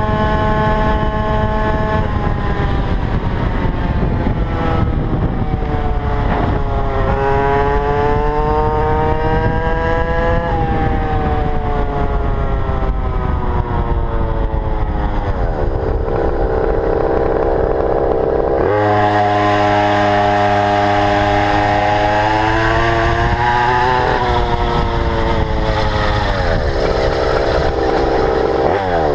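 GoPed's GP460 small two-stroke engine running under changing throttle, its pitch rising and falling several times. About two-thirds of the way through the sound turns harsher, with a stronger low hum.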